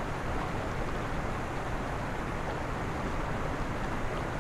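Fast-flowing mountain creek rushing steadily: an even hiss of moving water with no breaks.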